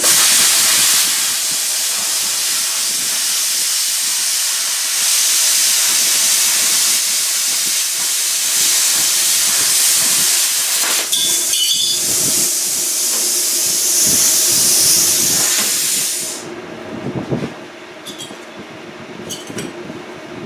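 Plasma cutter cutting 16-gauge sheet steel: a loud, steady hiss of the air and arc that starts abruptly and cuts off about three-quarters of the way through, over a low machine hum that keeps running, with a few small clicks near the end.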